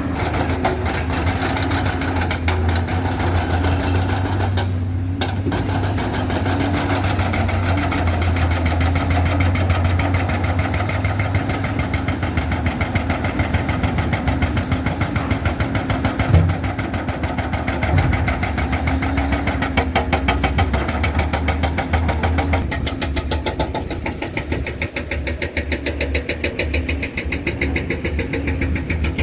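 Heavy diesel engine of an excavator or dump truck running steadily with an even, rapid firing rhythm. Two brief knocks sound a little past the middle.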